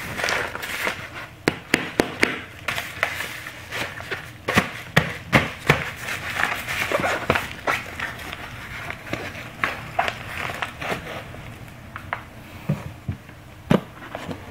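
Kraft-paper bubble-lined mailer envelope handled and pressed by hand: irregular crinkling and rustling of the paper with many sharp crackles and clicks, busiest in the first half, and one louder click near the end.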